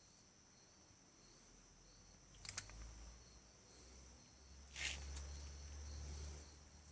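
Crickets chirring faintly and steadily, with a few sharp clicks about two and a half seconds in and a short rustling burst near five seconds.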